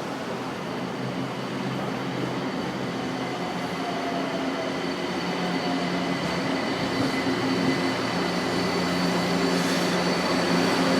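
São Paulo Metro Line 1 train running in the station, growing gradually louder, with several steady high whines over the rumble.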